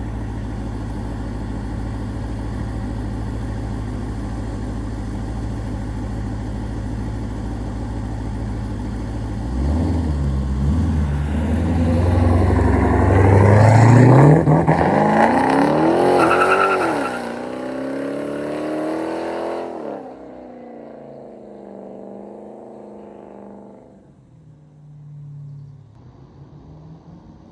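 Twin-turbocharged 5.7-litre Hemi V8 of a Dodge Charger running steadily, then accelerating hard about ten seconds in. The engine note climbs steeply, dips briefly, climbs again, then falls away. After about twenty seconds it runs much quieter.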